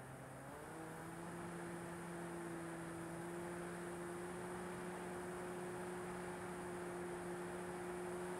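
RC Corsair model plane's motor and propeller heard from on board, running with a steady whine that steps up in pitch about half a second in as throttle is added, over a steady rush of air.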